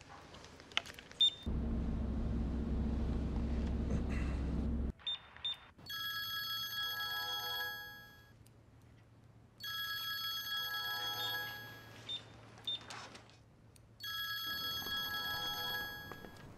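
A smartphone ringing with an incoming call: the ringtone sounds in three spells of about two seconds each, with pauses between. Before it starts, a low buzz lasts about three seconds.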